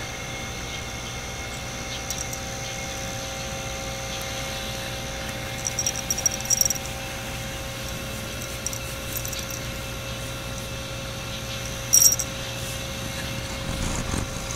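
Steady mechanical hum, with two short clusters of high chirps about six and twelve seconds in. Near the end, a cat's fur brushes and bumps against the microphone as it rubs its head on the camera.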